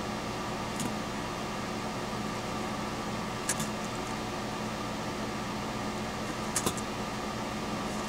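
A few light clicks of small screws and nuts being handled on a workbench, over a steady background hum.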